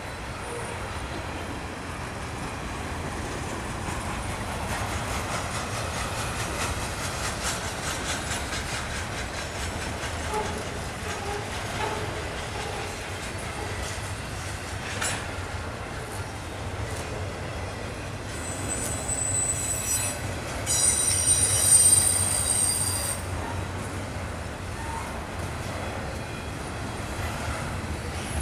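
Double-stack intermodal freight cars rolling past on the rails, a steady rumble and clatter of wheels on track. About two-thirds of the way through, a high-pitched wheel squeal rises for a few seconds and is the loudest part.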